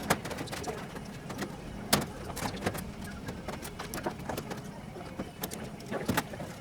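Scattered sharp metallic clicks and snaps of clecos being set into rivet holes with cleco pliers, fitting aluminium boot cowl skins to a kit airplane's firewall. The clicks come at irregular intervals; the loudest are near the start, about two seconds in and about six seconds in.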